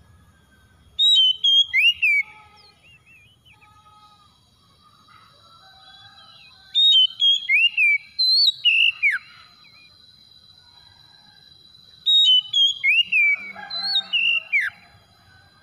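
Oriental magpie-robin singing in three loud bursts of clear whistled phrases with sliding, swooping notes, about a second in, mid-way and near the end. Fainter bird chirps and a steady high thin tone carry on between the bursts.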